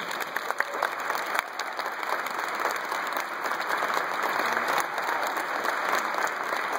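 Audience applause: many hands clapping, beginning suddenly and holding steady.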